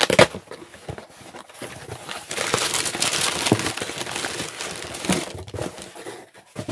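Tissue paper and a plastic-bagged nylon tote crinkling and rustling as they are handled in a cardboard box, loudest from about two seconds in, with a few sharp taps at the start.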